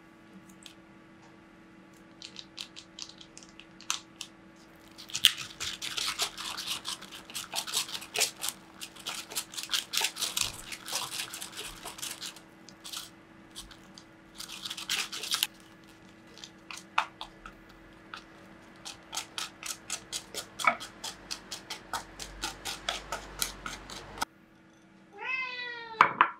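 A long run of quick clicks and taps, dense in stretches and then a steadier run of clicks. After a sudden break, a house cat gives a short meow near the end.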